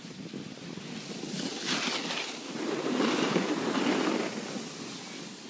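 Rushing noise of sliding down a ski slope: edges scraping over packed snow, with wind buffeting the microphone. It swells in the middle and eases off near the end.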